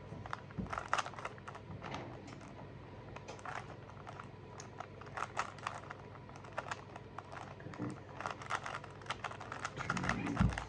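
Rubik's cube being turned quickly by hand: a run of irregular plastic clicks and clacks as the layers snap round.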